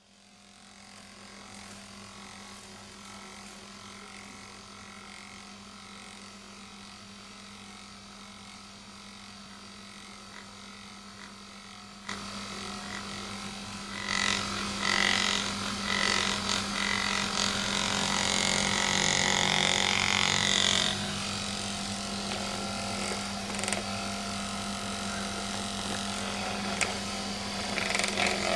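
Small motor of a handheld Magnessage magnetic massager humming steadily, getting louder about twelve seconds in. For several seconds in the middle, a scratchy rubbing noise sits on top of the hum as the device is pressed against a cat's fur.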